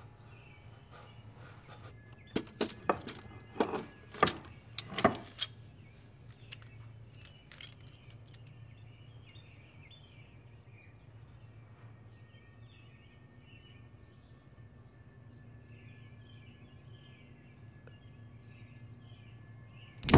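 Revolver dry-firing on empty chambers: about eight sharp metallic clicks over some three seconds as the hammer falls and fails to fire, over faint bird chirps and a low hum.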